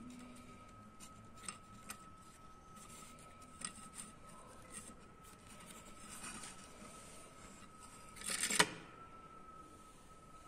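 Miniature wooden guillotine released: its wooden blade block slides down between the uprights with a brief rushing scrape and lands with a single sharp wooden clack a little past eight seconds in. Before that, a few light clicks as the cord and release pin are handled.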